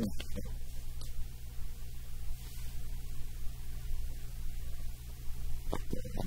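Steady low electrical hum in the room, with a brief short sound just before the end.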